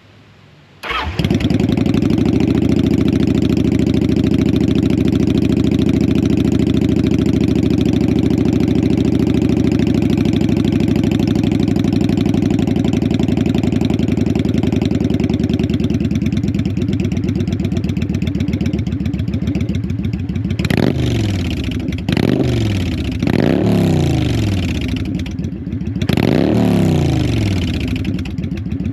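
Kawasaki Vulcan 900 V-twin with a Vance & Hines aftermarket exhaust starting up about a second in and settling into a steady idle. Several quick throttle blips, each rising and falling, follow near the end.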